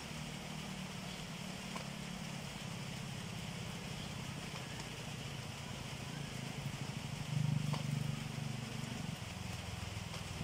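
A steady low hum, louder for a couple of seconds past the middle.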